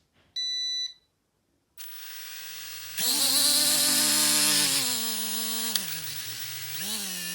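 A short electronic beep, then the small brushed motors and propellers of a mini drone spin up with a high whine. The speed wavers, drops about five to six seconds in and picks up again near the end, a power cut-out that the owner traces to a broken wire.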